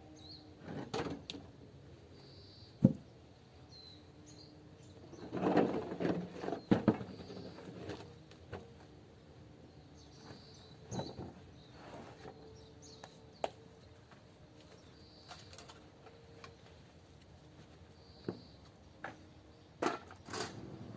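Scattered knocks and clunks of handling, one sharp knock about three seconds in and clusters around six and twenty seconds, with a bird giving a short high chirp every few seconds.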